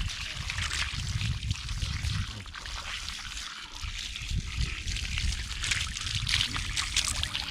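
Water pouring and splashing as a Boer goat buck's scour-soiled hindquarters are washed, a steady hiss with a low rumble underneath.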